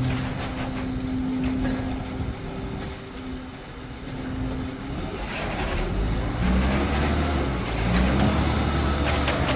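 Engine running steadily, becoming louder and deeper about halfway through, with a few scattered knocks.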